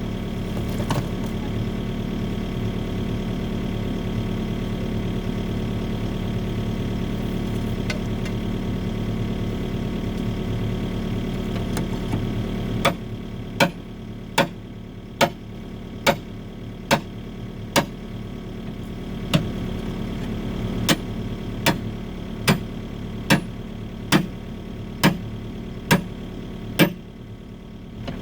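Excavator engine running steadily, then from about halfway a run of sharp sledgehammer blows, a little under one a second, knocking hardened concrete crust off the steel bucket.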